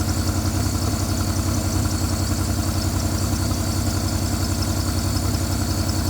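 Jeep Liberty engine idling loud and rough, with a rapid, even pulsing. It is shaking hard and smoking, which the owner thought might be a misfire, and it dies if left to idle.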